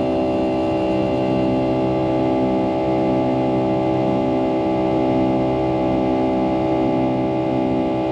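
Pratt & Whitney PW2037 turbofans of a Boeing 757-200 heard inside the cabin, running steadily as a hum of many fixed tones. The lower tones swell and fade in a slow regular throb.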